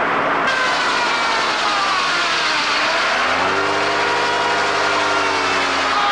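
Sawmill running while a log is sawn: a loud, steady mechanical din with a whine that slowly falls in pitch. From about three seconds in, a lower engine-like hum joins it and sags slightly.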